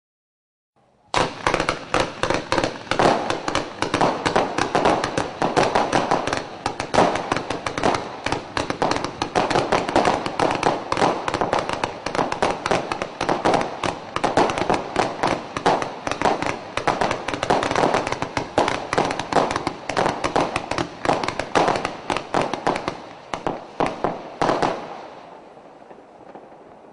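A Blackfox 188-shot "W"-shaped fireworks cake (BFPC073) firing a rapid, continuous volley of shots and bursts. It starts about a second in, stops abruptly after about 24 seconds, then dies away.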